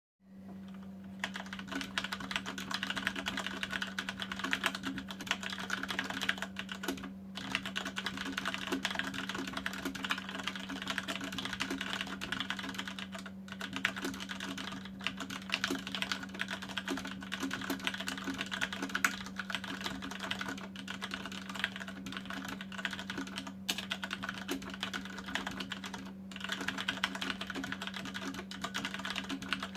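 Fast, continuous typing on a Cougar Attack X3 mechanical keyboard with Cherry MX Brown switches. The keystrokes start about a second in and come in a dense clatter with a few brief pauses, over a steady low hum.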